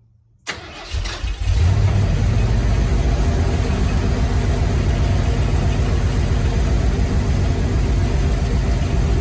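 Ford F-150's carbureted 5.0-litre V8 cranking and catching about a second and a half in, then running steadily. The newly fitted mechanical fuel pump is now feeding the carburetor.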